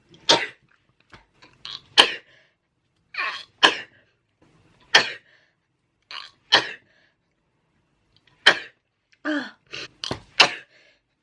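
A person sneezing over and over: about seven sharp sneezes, one every second or two, with fainter short sounds between them.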